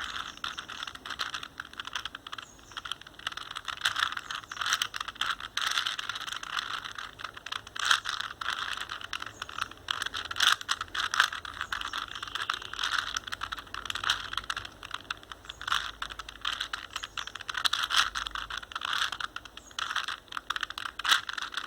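The plastic layers of a 4x4x4 Rubik's cube being turned rapidly to scramble it: a continuous run of clicking and clattering, with louder snaps here and there.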